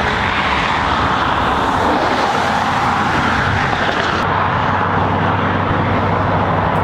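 Loud, steady rushing drone with a low, even engine hum underneath.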